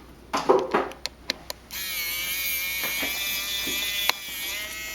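Small cordless precision electric screwdriver running steadily with a high whine for about three seconds, backing out a tiny Phillips screw from a phone's connector cover plate. Before it, a few light clicks of tools on the phone.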